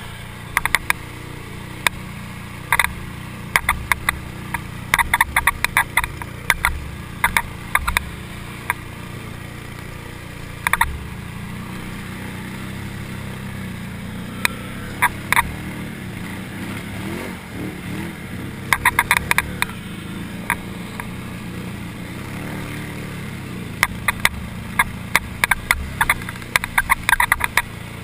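Can-Am Renegade 800 ATV engine running steadily while the quad wades through deep water, with frequent sharp clicks and knocks coming in clusters.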